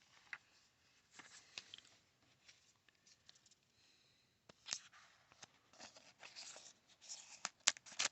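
Faint rustling and scattered light clicks of a trading-card pack and cards being handled, busier and louder in the second half.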